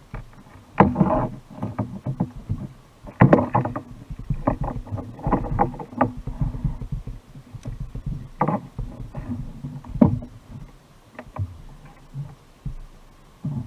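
Irregular knocks and water noise on a fishing kayak, a handful of sharper knocks standing out, the loudest about a second in and around three seconds.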